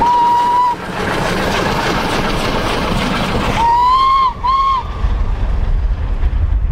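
Steam locomotive whistle on K4 class 61994, a single note, blown once and then twice more close together about three and a half seconds in, over the steady noise of the running train. Near the end low rumble and wind on the microphone take over.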